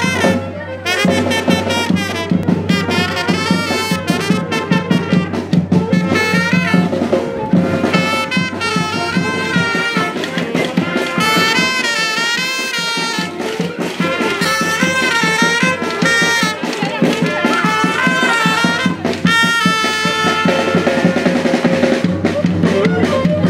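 A small Mexican marching brass band playing a lively tune: trumpets and saxophone carry the melody over a snare drum and a large bass drum.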